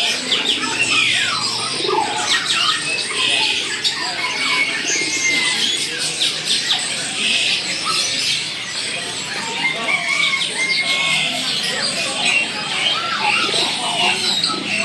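Many birds chirping and calling at once, a constant dense chatter of short high chirps, with domestic pigeons cooing among them.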